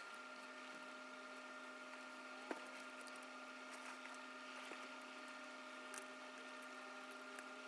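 Faint small clicks and taps of metal parts being handled and fitted while a toy train motor is screwed back together, the sharpest about two and a half seconds in, over a steady faint hum.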